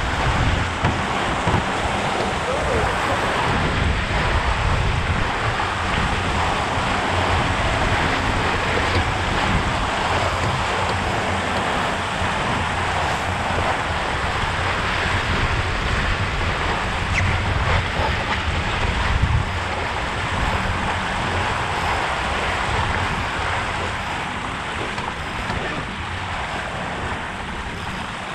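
Rushing, hissing water of the bow wave and wake of an RS K6 sailboat moving fast, with wind buffeting the microphone in a low rumble. The rush eases a little near the end.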